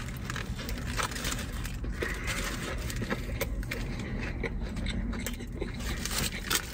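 Food packaging being handled and opened, with scattered small clicks and light scrapes over a low steady hum.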